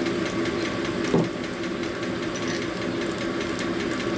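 Motor-driven cylinder hone running steadily in a shovelhead cylinder bore, honing stones cutting the bore, with a single knock about a second in.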